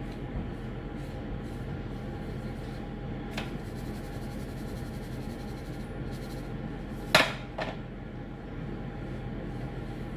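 Air fryer running with a steady fan hum. About a third of the way in there is a light tap, and past the middle a sharp knock on the kitchen counter with a smaller one just after.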